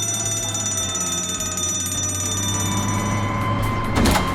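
Fire station alarm sounding a continuous, steady electronic tone, drifting slightly lower in pitch. A short loud thump near the end.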